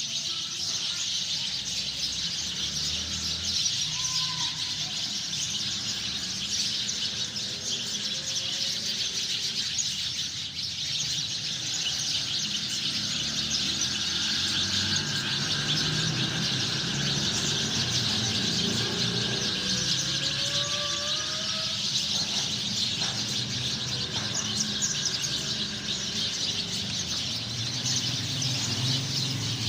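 A flock of sparrows chirping, many rapid overlapping calls at once, with a low hum underneath.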